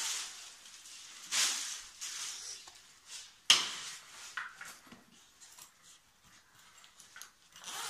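Plastic wrapping rustling and crinkling as it is pulled off a soft-sided suitcase, with a sharp knock about three and a half seconds in.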